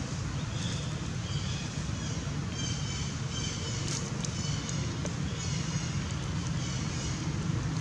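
Outdoor background: a steady low rumble with faint, short, high chirps repeating over it from about half a second in.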